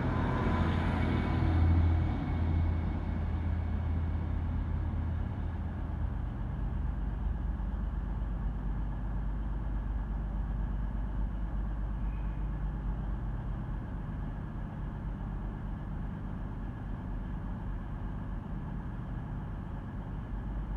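Class 153 diesel railcar's engine pulling away under power, loudest about two seconds in, then fading as the unit draws away. A steady low hum continues after it.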